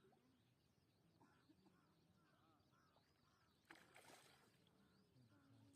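Near silence, with one faint tap about three and a half seconds in.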